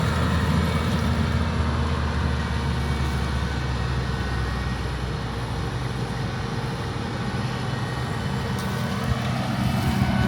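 Diesel engine of working harvest machinery running steadily; it eases slightly partway through and picks up again near the end.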